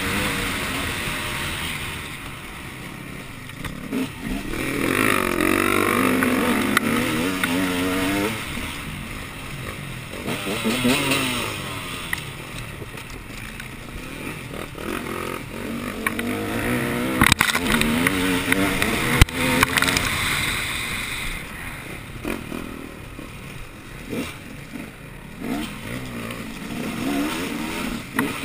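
Engine of an off-road race machine revving up and down again and again as it is ridden, loudest about a quarter of the way in, with two sharp knocks past the middle.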